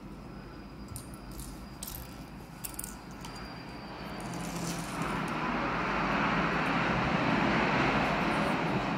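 An airplane passing overhead: a steady rushing drone that grows louder from about four seconds in and stays up to the end. Before that, a few light clicks and rattles of plastic Lego pieces being handled.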